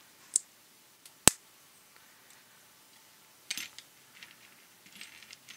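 Small sharp clicks as plastic wheels are pressed onto the metal axles of a Hot Wheels die-cast car base, the second click about a second in the loudest. A brief scrape follows as the base is set down and rolled on a cutting mat.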